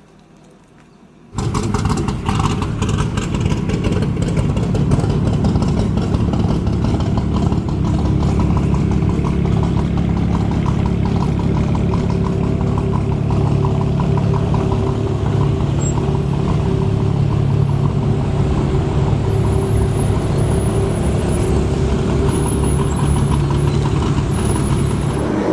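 A Jaguar F-Type's supercharged engine starts up about a second in, then idles steadily.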